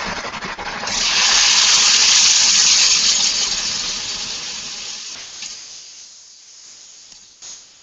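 Chuck roast sizzling loudly as it goes into hot olive oil in an enamelled cast-iron Dutch oven, the sizzle flaring about a second in and then slowly fading, over the steady rush of a kitchen range-hood vent fan.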